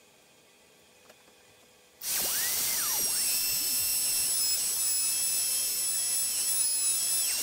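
Electric router switching on about two seconds in and running with a steady high-pitched whine as it cuts a groove in a wooden template board, guided along a clamped straightedge.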